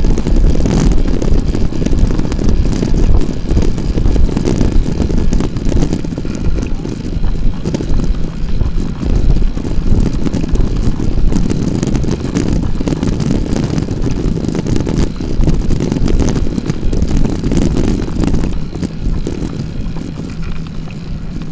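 Wind buffeting the microphone of a camera mounted on a moving bicycle, a loud, continuous low rumble that rises and falls with the airflow.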